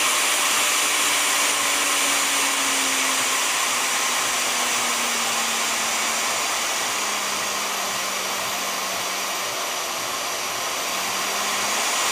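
Vevor 5120 plunge router's motor running with no load, a steady high whine. Its pitch falls over the first few seconds as the variable-speed dial is turned down, holds low, then rises again near the end as the speed is brought back up.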